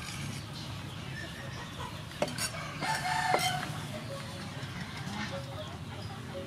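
A rooster crows once, about three seconds in, over a steady low background. A couple of sharp clicks come just before the crow.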